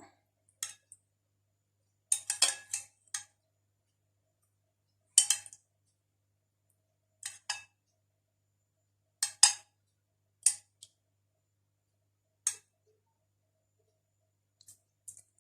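Kitchen utensils clinking and tapping against dishes, in about eight short, separate clinks at uneven intervals while syrup is spooned over a hot cake to soak it.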